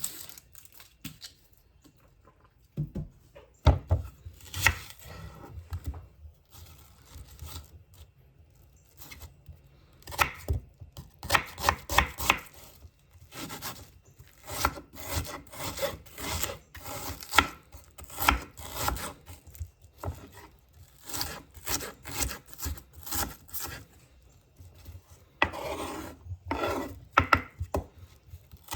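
Kitchen knife chopping on a wooden cutting board in bursts of quick strokes with short pauses between, and a short scraping stretch near the end.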